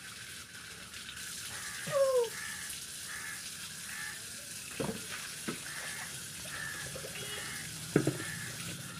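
Steady hiss of running water, with a short falling tone about two seconds in and a few sharp knocks, the loudest one near the end.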